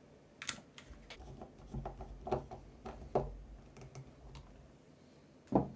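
Screwdriver work on a wiper motor's park-switch terminal: a scatter of light metal clicks and taps with some handling rumble, and a sharper click near the end.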